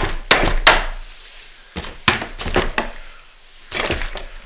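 Wooden knocks and clunks in three short spells as a mortise-and-tenon joint of a wooden rodel is worked loose.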